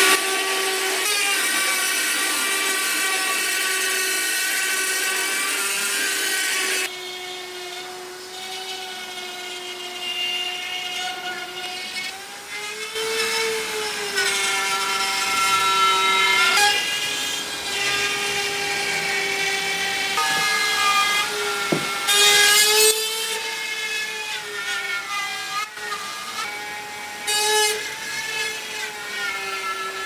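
Power saw cutting lengthwise through a steel wall stud: a continuous motor whine whose pitch sags and rises as the blade bites, dropping in level about seven seconds in.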